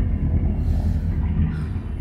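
Steady low rumble of a 2005 Meridian 368 motor yacht's twin inboard engines idling as the boat is eased into its slip.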